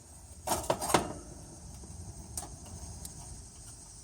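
A few sharp metallic clicks and clacks about half a second to a second in, from tools and parts being handled at an air conditioner's outdoor condenser unit during a capacitor swap.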